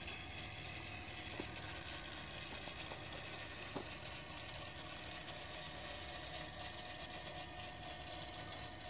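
Steady hum and whine from a power inverter running off a car battery, mixed with the drive motors of a Meade LXD 750 equatorial mount slewing under load. Two faint clicks come about 1.5 and 4 seconds in.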